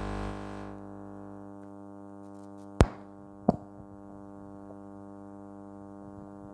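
Steady electrical mains hum, a buzz of many even overtones that does not change. It is broken by two sharp clicks a little under a second apart, about three seconds in.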